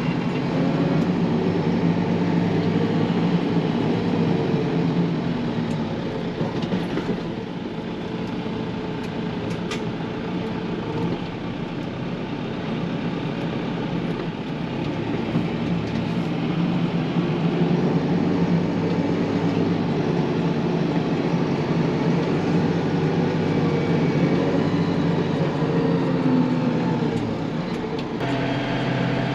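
Steyr tractor's diesel engine running steadily under load while pulling a cultivator and seeder; it eases off a little about a quarter of the way in and builds back up about halfway through.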